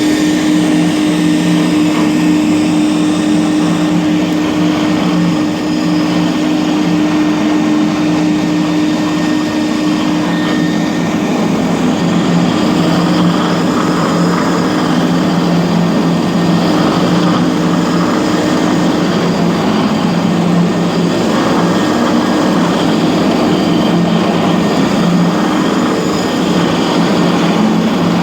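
Twin-headed DFG500 three-phase concrete floor grinder running steadily, its diamond button plates grinding an old concrete floor: a constant motor hum over a continuous grinding noise.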